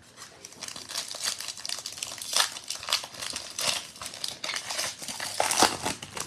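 Foil wrapper of a 2021 Panini Prizm football card pack crinkling as it is handled and torn open, with the sharpest crackles about two and a half seconds in and again near the end.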